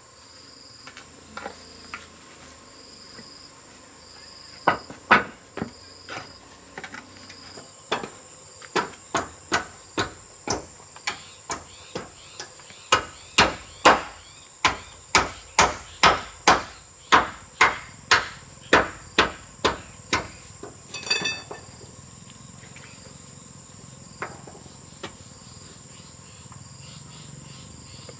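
Hammer blows, a couple at first and then a steady run of about two to three strikes a second that stops about two-thirds of the way through, with a short rattle just after. Crickets and other insects trill steadily throughout.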